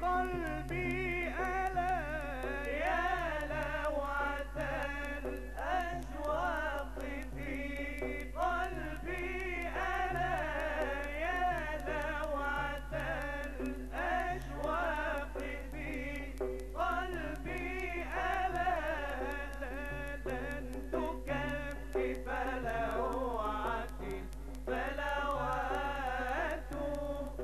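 Male nasheed singers (munshids) singing a Mawlid muwashshah, the melody bending and held in long sung phrases, over a low steady hum.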